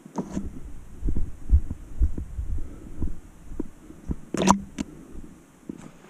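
Footsteps walking down a steep dirt trail: dull thuds about twice a second, with a sharp click about four and a half seconds in.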